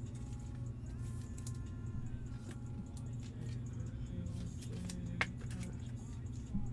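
Trading cards being handled between pulls, with a sharp click about five seconds in and a small knock near the end, over a steady low hum and faint background music.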